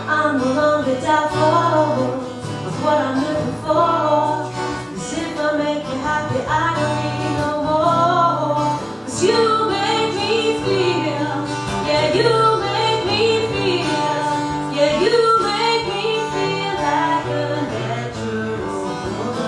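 Live acoustic music: a voice singing a drawn-out, gliding melody over acoustic guitar accompaniment.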